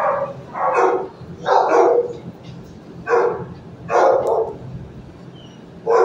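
A dog barking, about six loud, short barks at uneven intervals; the napping dog in view is not the one barking.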